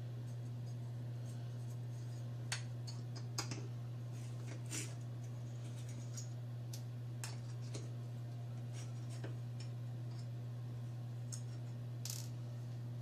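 A handful of small metal clicks and clinks, scattered over several seconds, from a small metal spirit-burner cup being handled, over a steady low hum.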